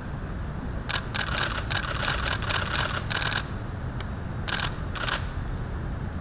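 Camera shutters firing in rapid bursts, several cameras at once, for about two and a half seconds from about a second in, then two more short bursts near the end, over a steady low hum.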